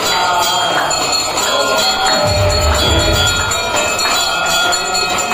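Bells ringing and jingling over devotional music, as at a puja. A brief low rumble comes about two seconds in.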